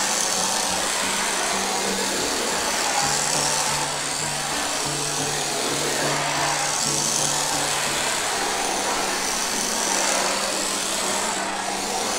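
Small electric motor of a K969 RC drift car whining, its pitch shifting as it is driven in slides around a mat, over background music.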